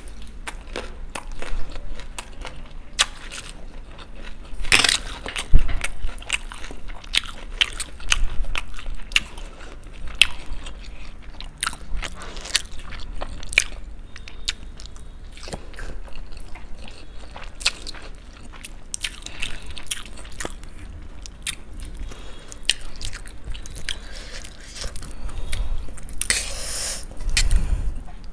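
Close-miked eating sounds of two people eating masala noodles, fried cauliflower pakoda, boiled egg and raw green chillies: biting and chewing with many short crunches and clicks. There are louder bites about five seconds in and again near the end.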